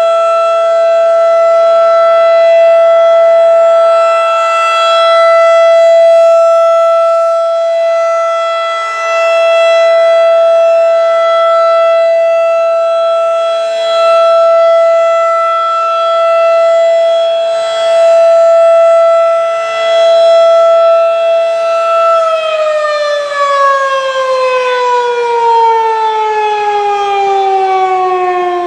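Federal Signal 2001-DC rotating electromechanical siren sounding its steady alert tone at about 667 Hz. About 22 seconds in the siren begins winding down and the pitch falls steadily, the end of the steady alert signal.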